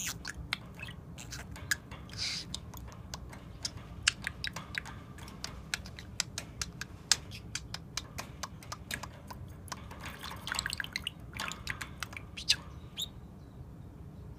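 Pet budgerigar making a string of sharp, irregular clicks and ticks, with a few short high chirps, over a steady low room hum; the clicking thins out near the end.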